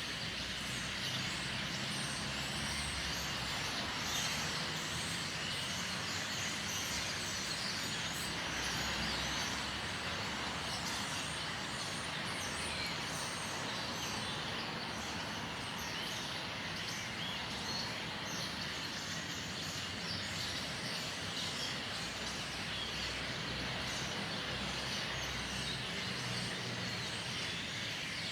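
A large flock of birds calling all at once, a dense constant chatter of many overlapping chirps, over a steady rumble of traffic.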